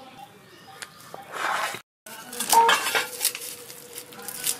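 A short rustle, a brief dropout to silence, then a run of light metallic clinks and knocks with a faint ringing tone under them.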